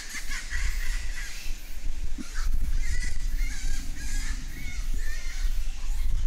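Japanese macaques calling: a string of short, high, rising-and-falling calls, clustered from about two and a half to five seconds in, over a steady low rumble.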